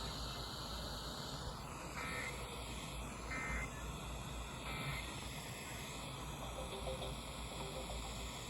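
EAS end-of-message signal: three short warbling digital data bursts about a second and a half apart, over steady hiss from FM radio reception.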